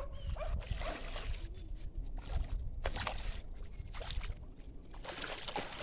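Water splashing and sloshing in irregular strokes, over a steady low rumble of wind on the microphone.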